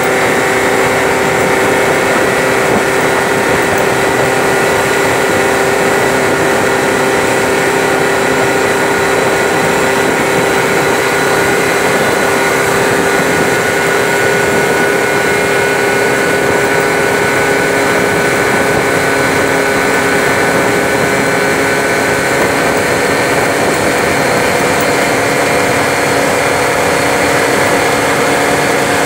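Peugeot Jet C-Tech 50cc two-stroke scooter engine running steadily while riding at cruising speed, its pitch drifting only slightly, under a constant rush of wind and road noise.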